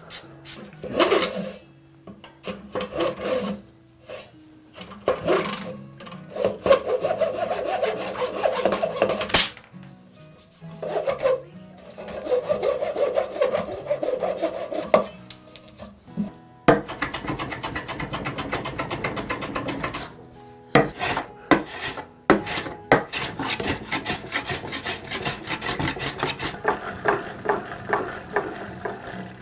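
Hand-tool work on wood: a saw cutting wooden dowel pegs flush with the surface in runs of strokes, then a longer, steadier stretch of rubbing and rasping on the wood.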